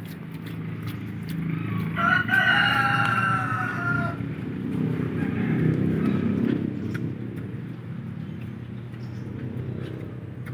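A rooster crows once, a slightly falling call about two seconds long starting about two seconds in. Beneath it runs a low, steady noise that swells in the middle and then eases off.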